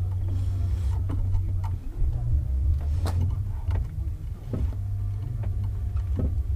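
Steering rack of a 2005 Mazda 6 GG being worked back the other way after fresh grease was packed into its left boot, giving scattered clicks and knocks over a steady low hum.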